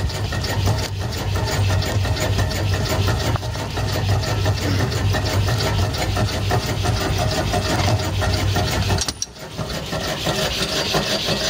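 Wooden logs scraping and rubbing as they are pushed into the firebox of a wood-fired burner, over the steady running hum of a homemade alpha Stirling engine generator. About nine seconds in there is a sudden clank and the hum drops away.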